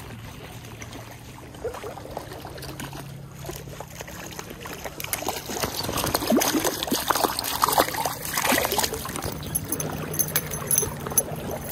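Small trout splashing and thrashing at the surface of a shallow stream as it is reeled in toward the bank on a spinning rod. The splashing gets louder and busier from about halfway through.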